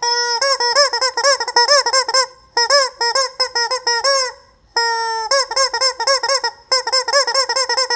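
Chicken cackling loudly: quick rising-and-falling squawks, several a second, in three or four runs with short breaks, and one long held note about five seconds in.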